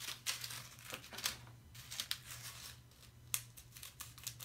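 A small plastic packet of Orbeez water beads crinkling as it is handled and cut open with scissors: a string of short crinkles and snips.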